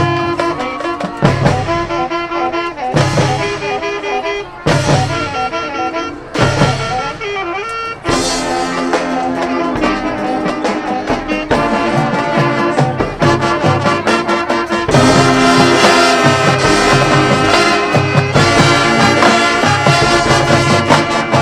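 Marching band playing its field show, with brass carrying sustained melody lines over a steady beat of low drums. The full band grows louder about two-thirds of the way through.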